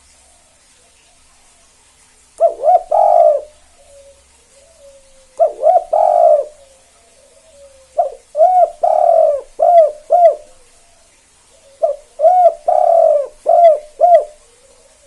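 Spotted dove (tekukur) cooing its "kuk 2" song: four phrases a few seconds apart, each a quick run of short coos.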